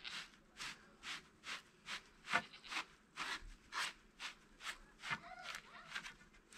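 Repeated short rubbing or scraping strokes, about two a second, in an even rhythm.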